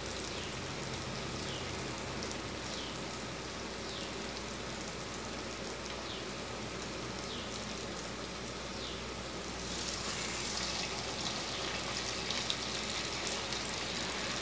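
Rice-batter-coated stuffed bitter gourds sizzling steadily in hot oil in a kadai. About ten seconds in the sizzle grows louder and brighter as another battered piece goes into the oil.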